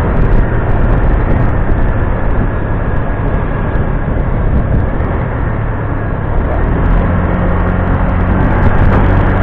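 A new motorcycle's engine running while riding at moderate speed, held back during break-in, with wind rushing over the microphone; a steadier low engine hum comes up about seven seconds in.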